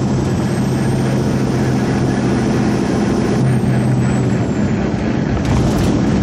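Semi-truck diesel engine droning with road and wind noise, heard inside a moving truck cab at highway speed. A steady low hum runs under it and fades about four seconds in.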